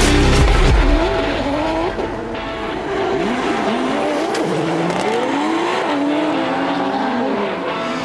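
Drift cars on track, their engines revving up and down while the tires squeal and skid.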